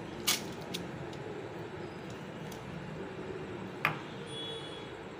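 Two brief clicks of a glass bowl and spoon, several seconds apart, as a wet chopped-vegetable and ketchup mixture is tipped out onto fried noodles in a non-stick pan, over a steady low hiss.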